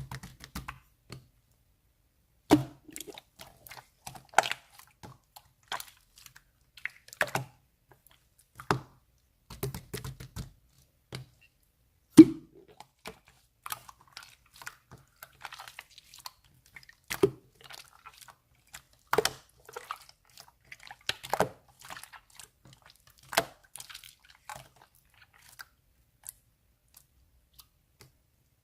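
Pink clear slime being worked by hand, giving irregular wet clicks and pops every second or so, with a few louder snaps.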